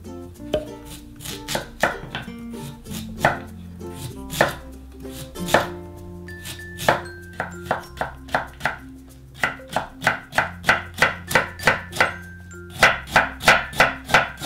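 Kitchen knife chopping on a cutting board. The strokes come irregularly at first, then in a quick even run of about three to four chops a second in the last few seconds, over light background music.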